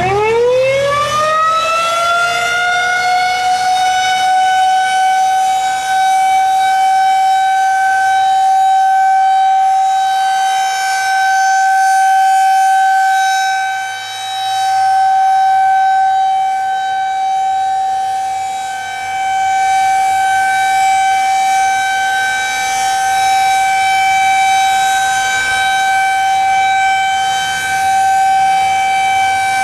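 Outdoor tornado warning siren sounding for a test. It winds up from a low pitch to a high wail within the first couple of seconds, then holds one steady tone, which briefly dips in loudness twice past the middle.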